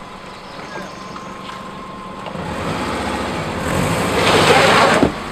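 A vehicle engine running, then pulling harder about two seconds in, with a growing rushing noise that is loudest near the end before it cuts off abruptly.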